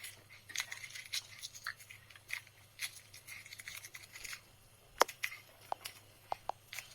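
Paper being crumpled and squeezed by hand into a ball: faint crackling and rustling, with a few sharper clicks about five seconds in.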